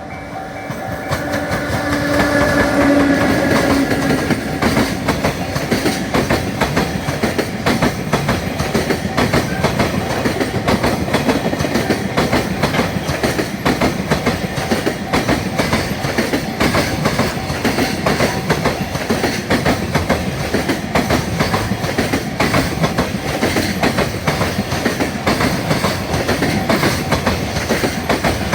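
A long freight train passes close by at speed, its wheels clattering continuously over the rail joints. The sound swells over the first few seconds, with a brief pitched hum as the locomotive goes by. A level-crossing warning bell rings steadily underneath.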